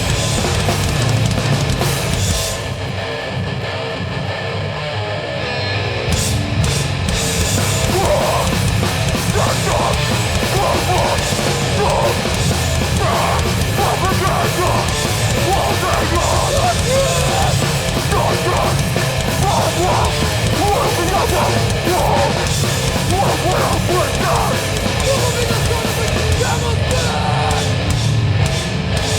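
Hardcore band playing live at full volume: heavy distorted guitars and bass over pounding drums, with shouted vocals. The sound thins out briefly about three to six seconds in, then the full band comes back.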